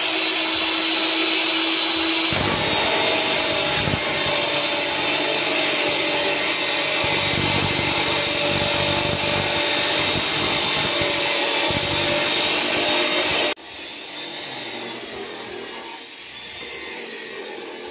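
Electric angle grinder with a cut-off disc: it spins freely with a steady whine for about two seconds, then bites into a steel bar and cuts for about eleven seconds, loud and gritty. It cuts off abruptly, leaving a much quieter background.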